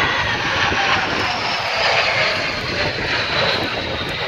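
Jet noise from CASA C-101 Aviojet jet trainers flying past: a steady loud rush with a high whine that slowly falls in pitch.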